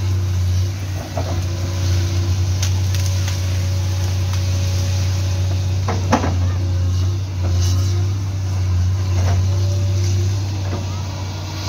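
Kobelco hydraulic excavator's diesel engine running with a steady low drone as it works. There is a sharp knock about six seconds in, and a few lighter clicks and knocks.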